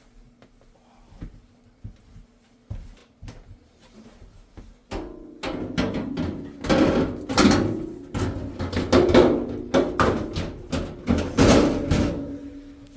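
Sheet-metal oven bottom tray being fitted back into the oven cavity: a few light clicks, then from about five seconds in a run of loud metal clattering and scraping as the tray goes into place.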